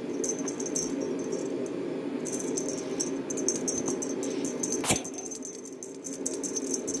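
A kitten clambering on a curtain: light jingling and rustling in bursts, and one sharp click about five seconds in, over a steady low hum.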